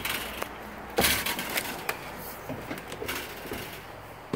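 A few knocks and clunks from someone stepping up through a travel trailer's entry door onto its floor, the loudest about a second in and a few lighter ones after.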